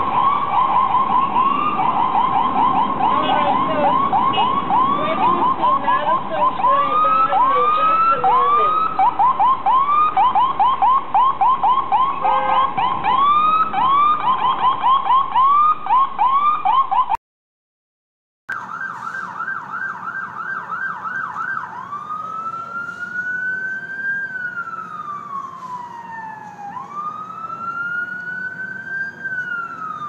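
Electronic emergency-vehicle sirens in US traffic, sounding as ambulance sirens: a rapid yelp for about seventeen seconds, then a second of silence, then another siren yelping briefly before switching to a slow wail that rises and falls about every five seconds.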